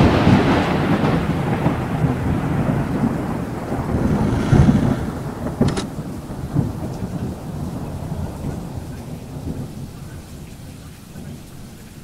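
A loud crash, then a long low rumble with a steady hiss that slowly fades away. It swells again about four and a half seconds in, and there is a sharp click about six seconds in.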